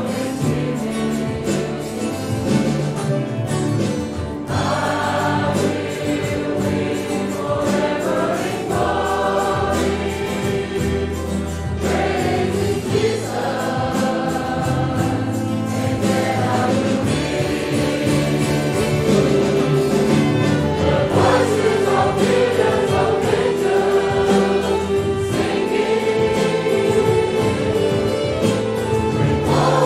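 Church choir singing a gospel hymn with violin, acoustic guitar and keyboard accompaniment.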